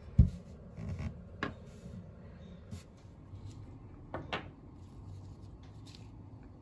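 Small objects being handled and set down on a tabletop: a low thump about a quarter second in, then a few light clicks and taps, two close together near the end.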